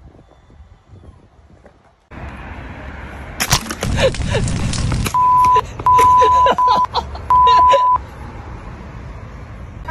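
A voice bleeped out by a censor tone: four short, steady, high beeps between about five and eight seconds in, covering swearing, over a background noise that starts about two seconds in.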